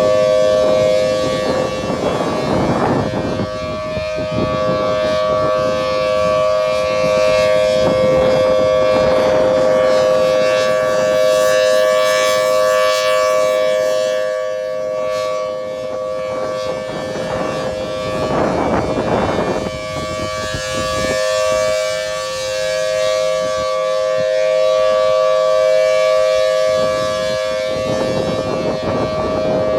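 Federal Signal Thunderbolt 1000T supercharged outdoor warning siren sounding its Alert signal: a loud, steady two-note chord that holds its pitch without winding up or down. A broad rushing sound swells and fades every eight to ten seconds.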